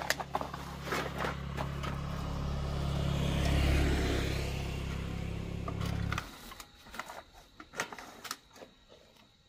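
An engine running with a steady low hum, growing louder to a peak partway through and then cutting off abruptly about six seconds in. A few sharp knocks come before and after it.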